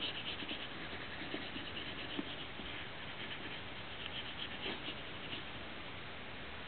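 Faint rubbing and light tapping of a stylus on a fridge's touchscreen, in repeated back-and-forth strokes as a drawing is erased, over a steady low hiss.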